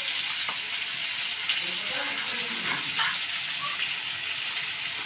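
Potato pieces frying in hot oil in a steel kadai, a steady sizzle.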